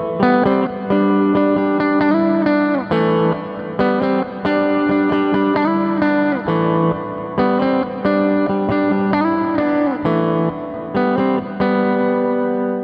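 Electric guitar through its single bridge humbucker, playing a short chord phrase with bent notes, repeated about three times as a tone demo.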